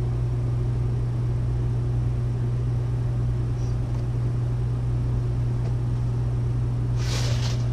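Steady low mechanical hum, like a fan or similar machine running in the room, with a brief rustle of handled packaging near the end.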